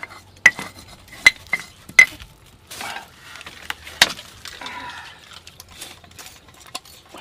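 Stone pestle knocking against a stone mortar while sambal is ground: four sharp ringing clinks in the first two seconds, then one louder clink about four seconds in.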